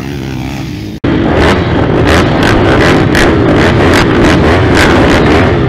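Many pit bike and small motocross bike engines running together at a start line, throttles blipped over and over. This follows a sudden cut about a second in, before which the sound is quieter engine noise of bikes out on the dirt track.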